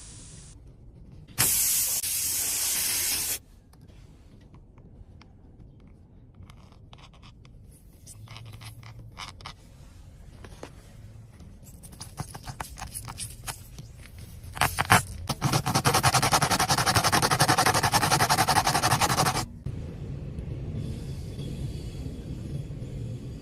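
Tyre puncture repair work: a loud hiss of air for about two seconds near the start, then light scraping and clicking, then a longer, louder hissing rasp for about five seconds in the second half.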